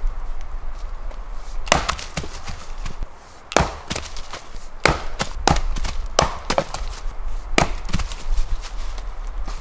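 Splitting axe chopping logs on a chopping block: about half a dozen sharp cracks of the blade into wood, the first about two seconds in and then roughly one a second, with smaller knocks between them.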